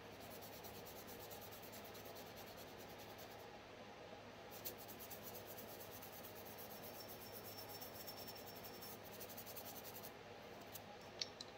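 Small brush scrubbing a Glock pistol slide, a faint, rapid scratching of bristles on metal that pauses briefly twice.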